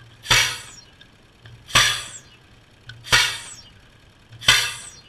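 Four sharp impacts, evenly spaced about a second and a half apart. Each one rings out briefly, and a short low hum comes just before each.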